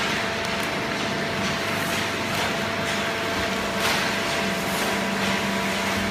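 Horizontal hydraulic waste-paper baler and its chain-plate feed conveyor running: a steady machine drone with several hum tones, the low hum growing stronger about four and a half seconds in. Brief rustling swells come a few times as loose waste paper is tossed onto the conveyor.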